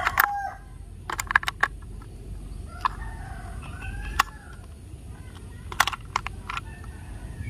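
Sharp plastic clicks and snaps as AA batteries are pressed into a toy train engine's battery compartment and the cover is fitted, in a few quick clusters. Birds call faintly in the background.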